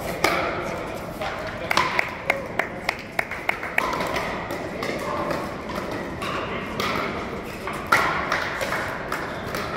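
Pickleball paddles hitting a hard plastic ball in a rally: sharp pops, a quick run of about eight at roughly three a second between about two and four seconds in, with a few more hits near the end.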